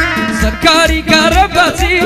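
Male vocalist singing live into a microphone, a wavering, ornamented melody that comes in about half a second in, over instrumental backing with a steady low beat about twice a second.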